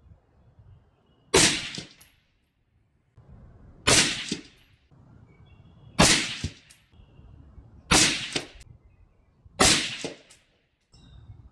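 Suppressed AR-15 rifle in 5.56/.223 firing five shots about two seconds apart, each a sharp report that dies away within half a second.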